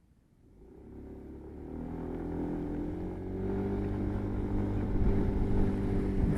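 Motorbike engine running steadily while riding. It comes in about half a second in and grows louder over the next two seconds, then holds.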